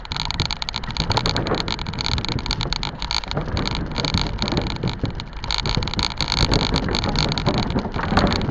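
Riding noise of an electric bike at speed: wind rushing over the microphone, with a constant irregular clatter of small rattles and knocks.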